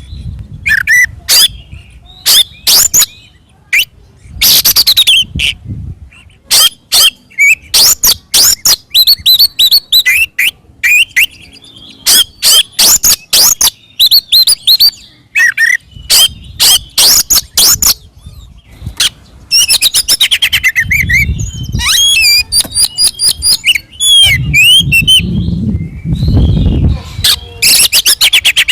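Oriental magpie-robin (kacer) singing loudly in fighting mode: fast runs of sharp, piercing notes, whistles and chattering phrases with short gaps between them. A low rumble comes in twice in the second half.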